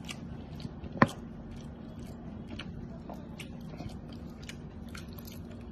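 A man chewing food, with soft irregular mouth clicks and one sharper click about a second in, over a low steady hum.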